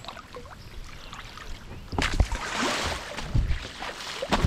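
Kayak paddle strokes splashing the creek water, starting about two seconds in, with a second splash near the end and low knocks among them.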